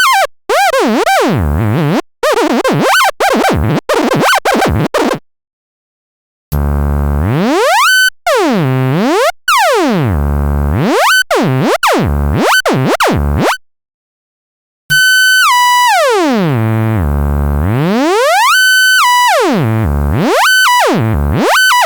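Synthesized tones made from the traced outlines of math symbols (Fourier epicycle sonification): a buzzy tone rich in overtones whose pitch wobbles rapidly at first, then, after brief silences, sweeps steadily down and back up in repeated V-shaped glides.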